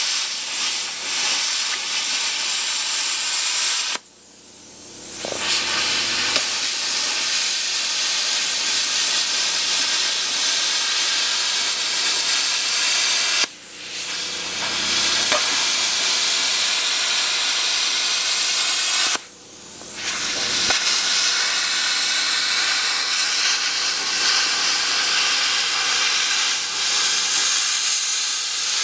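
Handheld plasma cutter hissing steadily as it cuts through a stainless steel dishwasher tub. The arc cuts out suddenly three times and restarts each time.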